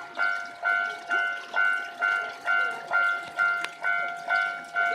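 Japanese railway level-crossing alarm ringing its repeated electronic bell tone, about two strikes a second, each strike fading before the next: the warning that a train is coming and the crossing is closed.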